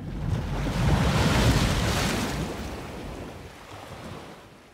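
Rushing noise of surf and wind buffeting the microphone on an open beach, swelling over the first two seconds and fading away.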